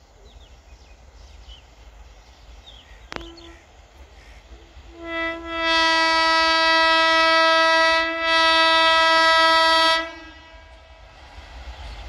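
Locomotive horn of an approaching Indian Railways express: a short toot about five seconds in, then two long, loud blasts with a brief break between them, ending about ten seconds in.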